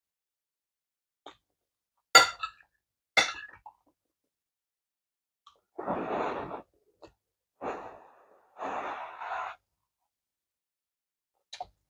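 A person blowing on a spoonful of hot rice to cool it: three short breathy puffs about six, eight and nine seconds in. Before them come two sharp clicks, about two and three seconds in.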